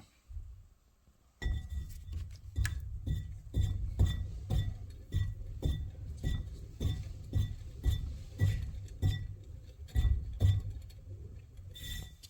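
Repeated strokes on a clay teapot during white slip application, about two a second, each a low thud with a light ceramic clink. They start about a second and a half in.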